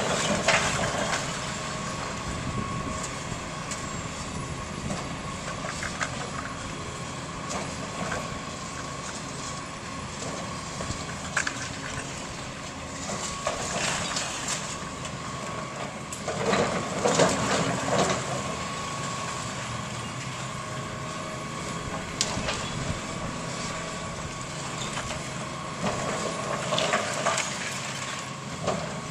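Tracked hydraulic excavator's diesel engine running steadily under a constant whine while the machine pulls down a brick wall. Bursts of brick and rubble crashing down come several times, the loudest near the middle.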